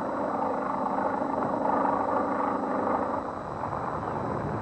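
Propeller aircraft engines droning steadily. About three and a half seconds in, the drone gives way to a rougher, noisy rumble.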